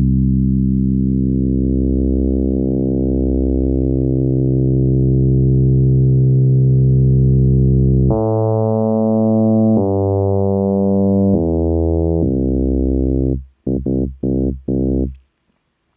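FM bass from Ableton Live's Operator synthesizer: one low note held for about eight seconds, getting brighter in its first seconds as the modulating oscillator is raised. Then a few different bass notes follow, and a handful of short staccato notes near the end.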